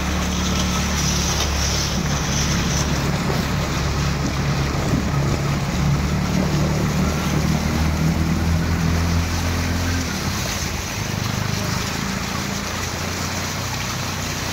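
Auto-rickshaw engine running steadily as it drives through floodwater, with water washing around the wheels and wind noise on the microphone. The low engine note drops off about ten seconds in.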